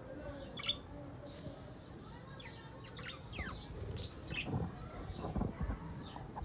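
Small birds chirping: many short, scattered high chirps and a few quick falling notes, with a few low thuds in the second half.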